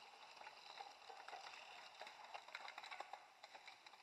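Faint crackling and clicking of a pack of mountain bikes riding past on a dirt forest trail: knobby tyres on the ground, and chains and gears clicking and snapping as the riders shift under load. The clicks come thicker in the second half.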